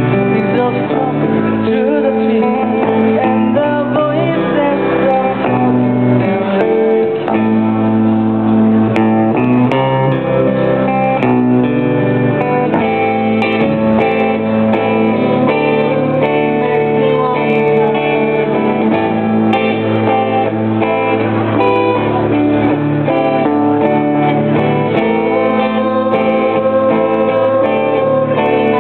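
Live music: acoustic guitar strummed along with singing.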